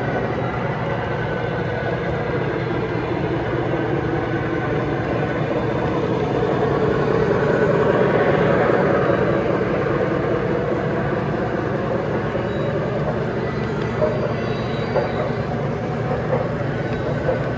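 Three-rail O-gauge model train running along the track with a steady rumble, growing louder toward the middle as it passes close and then easing off, with a few light clicks near the end.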